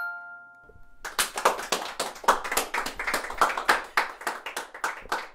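A chiming melody ends on a final chord that rings out for about a second, then applause: many hands clapping quickly and unevenly.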